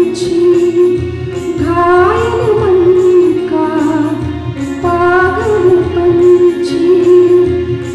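A Hindi devotional prayer sung by a woman's voice over a microphone and PA with instrumental accompaniment. It moves in slow phrases of long held notes, each phrase lasting two to three seconds.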